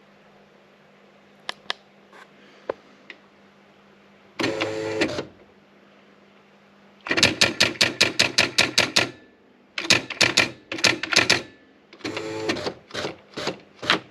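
Erika 3004 electronic typewriter printing: three bursts of rapid mechanical strikes, about seven a second, after a few single key clicks and a short motor whirr, over a steady low hum.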